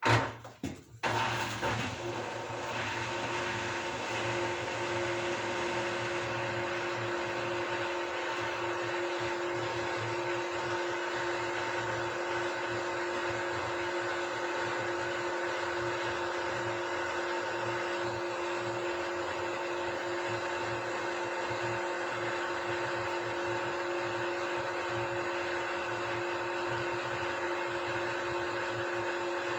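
Beko washing machine spinning at high speed on its 1400 rpm spin cycle: a steady motor-and-drum whine with several held tones over a rushing hum, the pitch not changing. A short loud noise comes at the very start.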